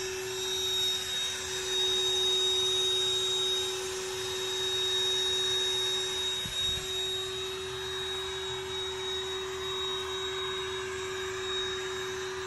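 Electric air pump running with a steady hum while it inflates a queen-size airbed.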